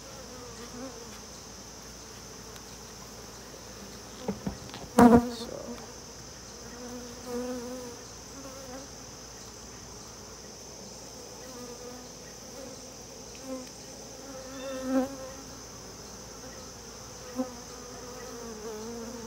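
Honey bees buzzing around an opened hive. Single bees pass close now and then with a rising and falling hum. A couple of sharp knocks come about four to five seconds in and are the loudest sound.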